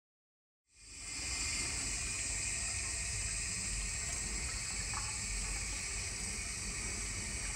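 Sink faucet running in a steady stream while a saxophone mouthpiece is rinsed by hand under cold water. The water sound comes in quickly just under a second in, after silence.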